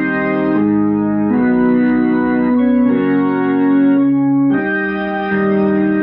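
1956 Hammond C3 tonewheel organ, freshly rebuilt, playing held chords through a 1956 Leslie 21H rotating-speaker cabinet in a sound test. The chords change every second or so, and the sound thins briefly a little past the middle.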